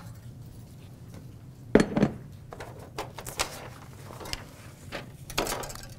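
Kitchen utensils and glass bowls handled on a countertop: a sharp knock about two seconds in, then a few lighter clinks and taps.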